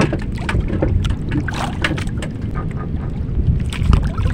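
Wind buffeting the microphone and water lapping against a small wooden outrigger boat's hull, with scattered light knocks and clicks of handling in the boat.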